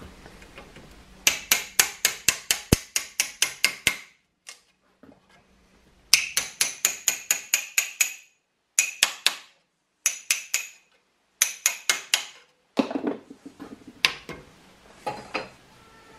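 Hammer blows on an old meat cleaver held in a steel vise as its wooden handle is knocked off: quick runs of about five sharp, ringing metallic strikes a second, broken by short pauses. Near the end come a few duller, deeper knocks.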